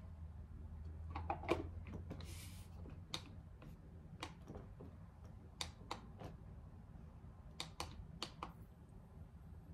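Faint scattered clicks and taps from handling a small plastic aroma diffuser, with one short hiss a little over two seconds in and a low steady hum underneath.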